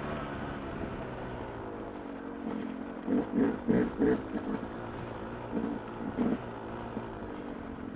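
Two-stroke dirt bike engine running at low speed, with a handful of short throttle blips about three to four seconds in and two more a little later.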